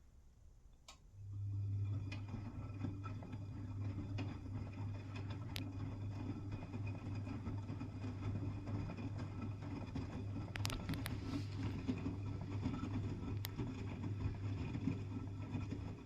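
V-Zug Adora SLX 258 washing machine starting up about a second in and running with a steady low hum and light clicks for about fifteen seconds, then cutting off suddenly near the end.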